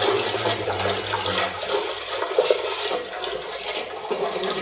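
Water sloshing and splashing as raw goat meat is washed by hand in a large metal pot.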